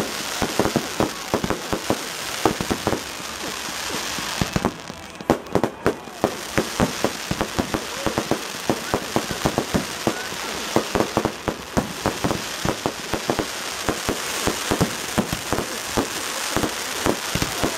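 Fireworks display going off: rapid, irregular bangs and crackles, several a second, over a steady hiss.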